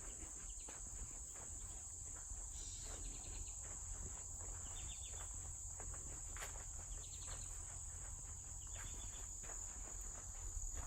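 Steady high-pitched chorus of crickets and other insects droning in woodland, with a few short chirping trills and scattered light crackles of footsteps on the forest floor over a low steady rumble.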